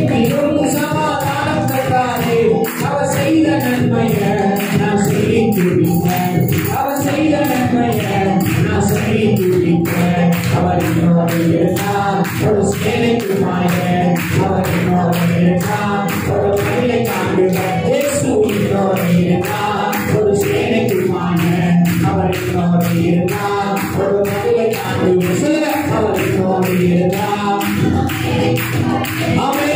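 Group of voices singing a worship song together, led by a man singing into a microphone, over a steady quick percussion beat.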